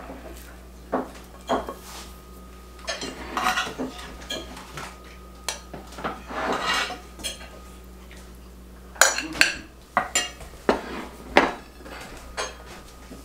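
A metal spoon and cutlery clinking and scraping against ceramic plates as food is dished up, in scattered sharp clinks. The loudest is a quick run of clinks about three-quarters of the way through.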